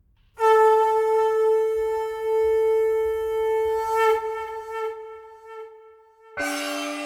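A horn sound effect: one long, steady, loud blast with a slight waver partway through. Near the end a second, lower-pitched blast starts abruptly.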